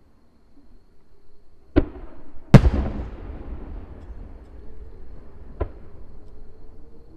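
Aerial fireworks shells bursting: three sharp bangs, the loudest about two and a half seconds in and followed by a long rumbling echo.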